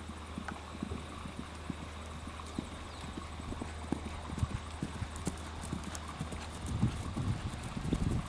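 Hoofbeats of a pony trotting on grass, dull thuds that grow louder as it comes close in the last couple of seconds.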